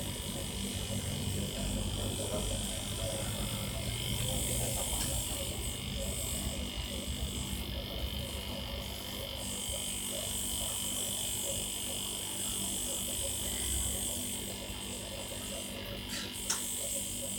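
Salvaged refrigerator compressor running with a steady electric hum, with one small click near the end.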